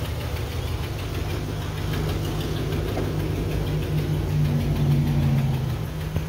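Ford F-350 pickup's engine idling steadily, the truck carrying an exhaust leak; the engine note grows a little louder for a second or so near the end.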